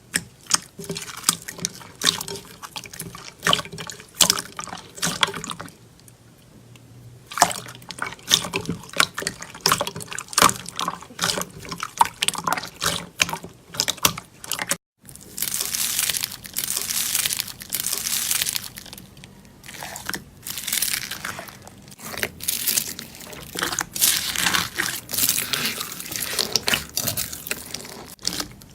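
Slime being squeezed, poked and stretched by hand, giving runs of wet, sticky clicks and squelches. After a brief break about halfway, the clicking is louder and denser.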